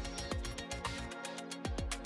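Electronic background music with a steady beat: bass drum hits about twice a second under fast hi-hat ticks.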